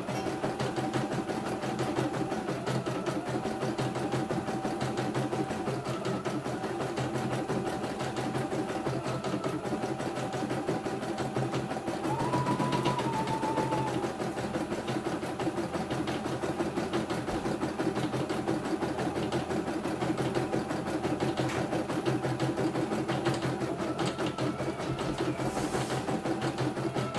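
CNY E900 computerized embroidery machine stitching a design: a fast, steady rattle of needle strokes, with a humming tone that shifts in pitch now and then. The machine is running smoothly, with no snags.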